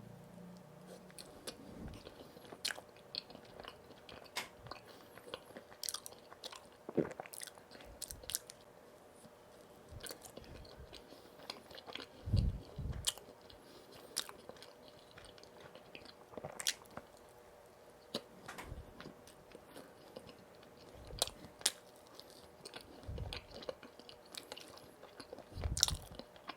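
Close-miked chewing and biting of donuts, with irregular soft mouth clicks and smacks and a few louder low thuds.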